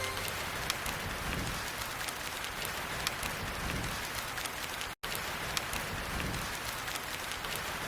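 Steady rain, an even hiss with scattered drop ticks; the sound cuts out for an instant about five seconds in.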